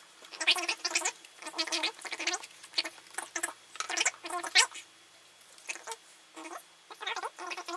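Laptop packaging being handled and unpacked: irregular short rustles, crinkles and scrapes of plastic wrap, foam and cardboard, with a quieter stretch around the middle.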